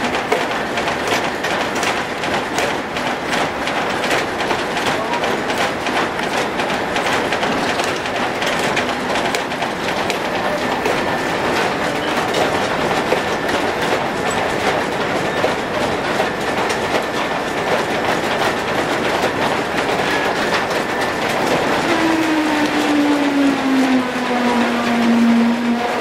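Belt-driven pulleys, shafting and gearing beneath a steam-powered sawmill running, a dense steady clatter of many rapid knocks. Near the end a squeal slides slowly down in pitch for a few seconds.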